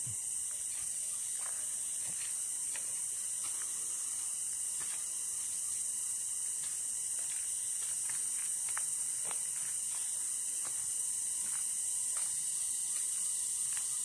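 Cicadas calling in one high, unbroken drone, with faint footsteps on dry leaf litter ticking through it.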